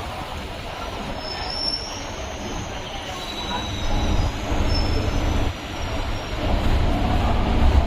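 Chennai MRTS electric suburban train running on the rails, its wheels squealing in thin high tones for a few seconds in the middle over a steady low rumble that grows louder near the end.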